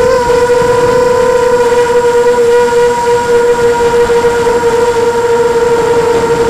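Brushless motors and propellers of a 250-size FPV quadcopter, heard through its onboard camera, humming at a steady pitch in forward flight, with wind rushing over the microphone.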